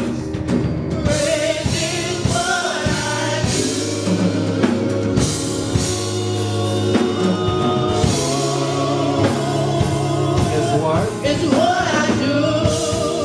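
Live gospel praise music: singers with a band of drum kit and bass, the voices in vibrato melody lines.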